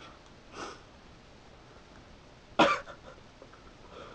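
A single sharp, muffled cough through a mouthful of marshmallows, about two and a half seconds in, after a fainter short huff near the start.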